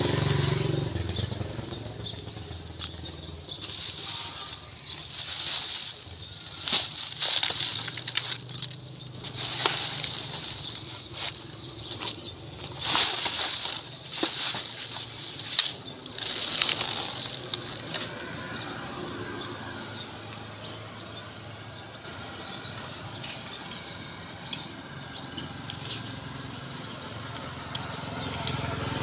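Plastic trash bags rustling and crinkling as a hand rummages through them, in irregular loud bursts during the first half and quieter, scattered crinkles after that.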